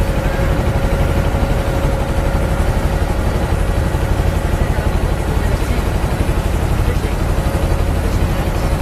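A boat engine running steadily and loudly, with a fast, even throb and a steady whine over it.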